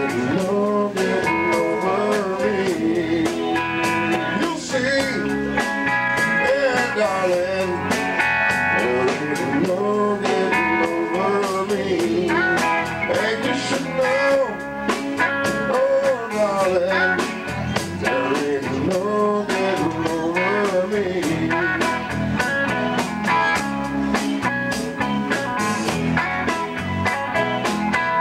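Live band playing a blues number: electric guitars, Fender electric bass and drum kit, with bending guitar or vocal lines over a steady beat.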